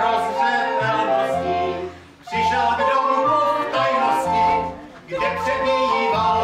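Czech folk music for dancing: voices singing a folk song with violin and a low bass line, in short phrases with brief breaks about two and five seconds in.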